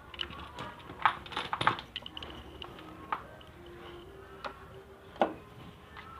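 Scattered light clicks and taps of small hard objects being handled, the sharpest about a second in and again about five seconds in.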